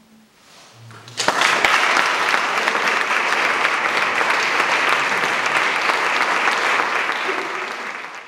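Audience applauding, breaking out suddenly about a second in after a brief hush and holding steady until it fades away near the end.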